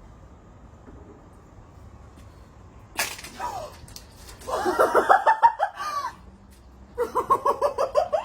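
A sudden noisy burst about three seconds in, followed by a person laughing hard in two rapid, pulsing bouts.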